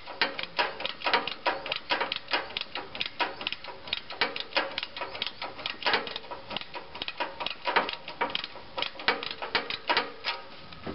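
Ratchet wrench with a swivel socket clicking in quick runs of sharp ticks as its handle is swung back and forth, tightening the nuts on the exhaust manifold's downpipe flange.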